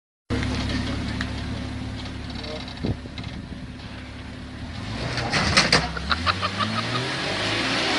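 Vehicle engine running steadily, then revving up, its pitch rising over the last couple of seconds. A few sharp clicks come just before the revving.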